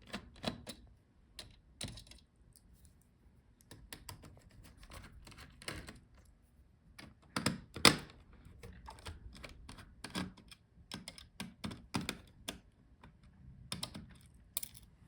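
Irregular small clicks and ticks of a screwdriver working on the fan screws of a laptop being taken apart, with a few sharper knocks of metal on the chassis, the loudest about halfway through.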